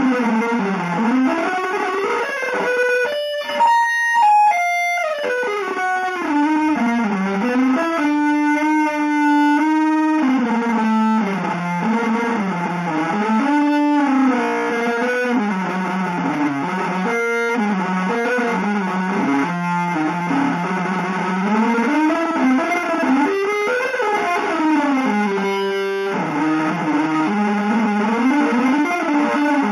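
Solo electric guitar improvising freely with no melody: a single sustained line that slides continuously up and down in pitch, with a quick leap into high notes a few seconds in and one long held note about eight seconds in.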